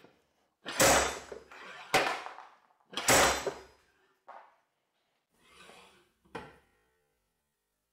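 Heavy slide hammer weight thrown along its shaft and hitting the end stop, pulling on a diesel injector held in a vise: three hard metal clunks about a second apart, then a few fainter knocks.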